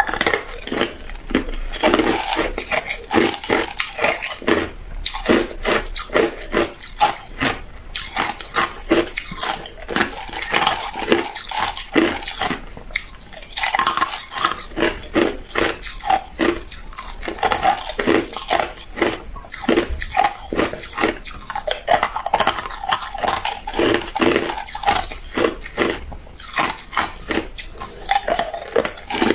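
Clear hard ice cubes crunched and chewed in a rapid, irregular run of sharp cracks, with cubes clinking against each other and a glass bowl as more are picked out.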